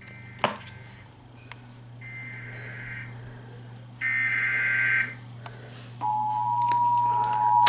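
Emergency Alert System SAME data header: two short, buzzy, warbling data bursts about two seconds apart, followed about six seconds in by the steady two-tone EAS attention signal. This announces that a new alert is beginning.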